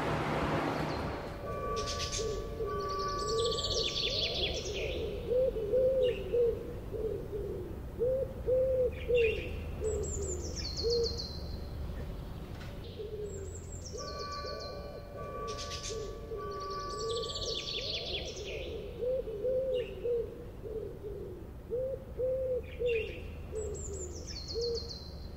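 Park bird ambience laid over the picture: birds calling, with runs of low hooting notes and high chirps that slide downward. The same sequence of calls comes round again about every twelve seconds, as a looped recording.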